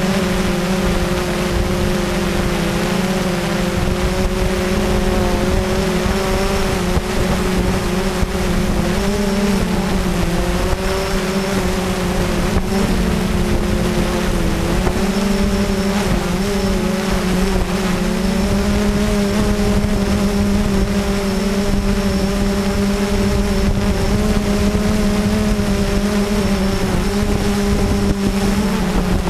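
Blade 350QX quadcopter's brushless motors and propellers droning steadily, heard up close from a GoPro mounted under the quad, the pitch wavering slightly as the quad slowly descends. A faint high whine sits above the drone.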